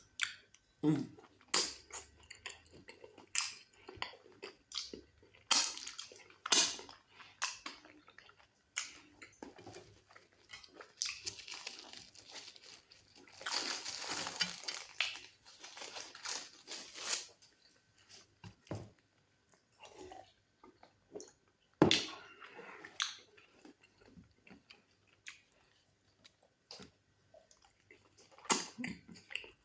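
Close-miked chewing and wet mouth sounds of someone eating fufu with goat meat in black soup: irregular smacks, crunches and squishy bites, with a longer noisy stretch around the middle.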